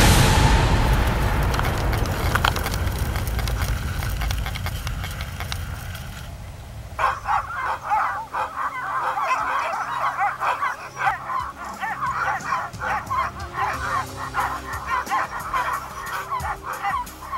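Music fades out over the first few seconds. About seven seconds in, many sled dogs in harness start barking and yelping together in a dense, overlapping chorus that keeps up to the end.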